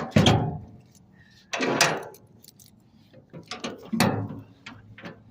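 A series of knocks, clunks and rattles as objects are lifted and moved by hand. The loudest come at the very start, about one and a half to two seconds in, and around four seconds in, with lighter clicks between.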